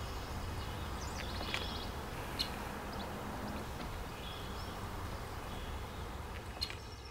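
Small birds singing and chirping over a steady low background rumble, with a couple of sharp ticks.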